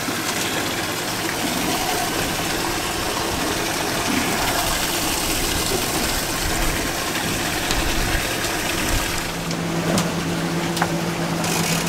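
Steady rushing water and boat engine noise, then from about nine seconds in a steady engine hum as the boat gets underway.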